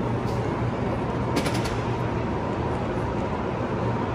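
Steady background noise of a busy exhibition hall: a constant low hum under an even wash of noise. A short run of clicks comes about a second and a half in.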